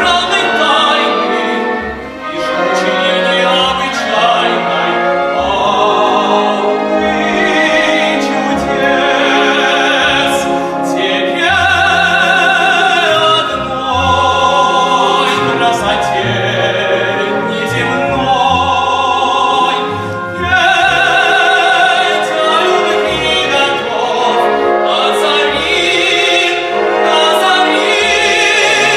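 An operetta singer's classically trained voice sings with a strong vibrato over an orchestral accompaniment.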